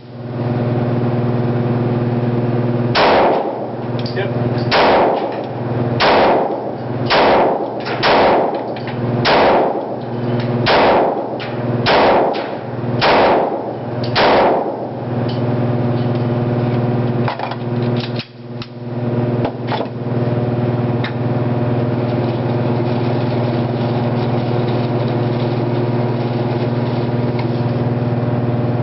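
Glock 23 pistol firing .40 S&W rounds: about ten shots at an uneven pace, roughly one every second or so, with the pistol firing and cycling each round. A few light clicks follow, over a steady low hum.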